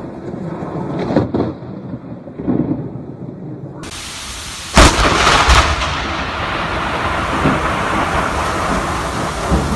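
Thunder from a close lightning strike: a sharp, loud crack about halfway through, followed by continuous rumbling with rain. Before the crack there is a quieter stretch with a steady high-pitched tone.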